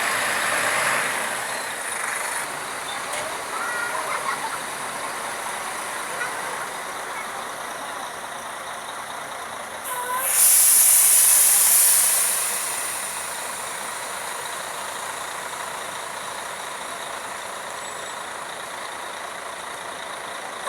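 Bus air brakes letting off a loud hiss for about two seconds midway, over steady road and engine noise.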